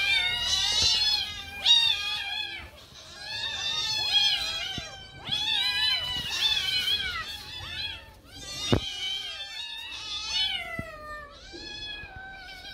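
A group of kittens meowing over and over, many high-pitched calls overlapping one another, as they beg for milk. A single sharp tap about two-thirds of the way through.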